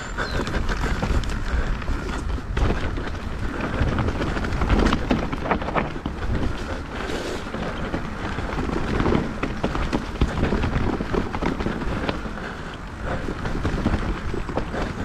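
Mountain bike riding over a rough trail: tyres on dirt and roots, with the frame and chain rattling through many small knocks. Wind buffets the camera microphone.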